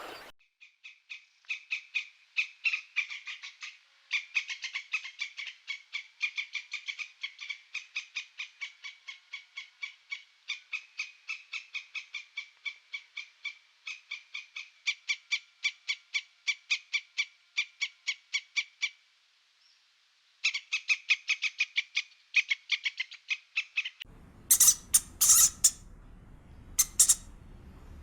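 A bird calling: a long run of short, high, evenly spaced notes at about five a second, with a break of about a second two-thirds of the way through. Near the end it gives way to a few sharp, high squeaks and clicks.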